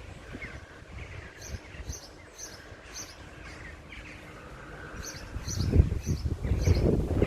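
A bird repeating a short high chirp about twice a second in two runs, with other fainter bird calls. A low rumble grows louder in the second half.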